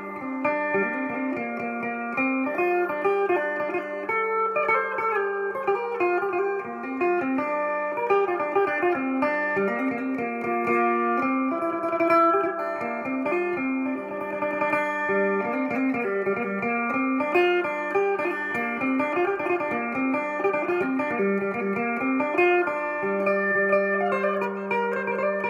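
Phin, the Isan/Lao long-necked lute, picked with a plectrum: a quick melody of plucked notes over a steady drone note.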